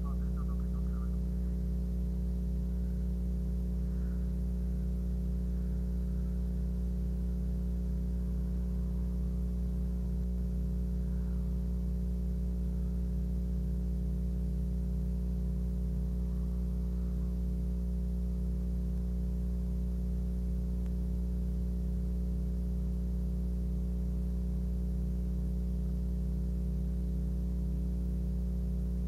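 Steady low electrical hum, a stack of unchanging tones that runs unbroken with no other clear event.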